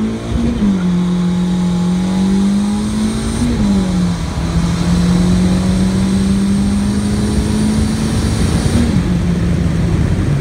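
Turbocharged Honda D16Y7 four-cylinder engine at full throttle, heard from inside the car's cabin. It runs near redline, with the pitch dropping briefly at upshifts about half a second in, around three and a half seconds and near nine seconds, and climbing slowly in between.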